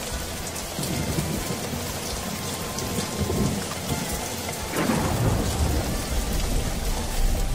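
Thunderstorm sound effect: steady rain hiss with several low rolls of thunder, the strongest about five seconds in.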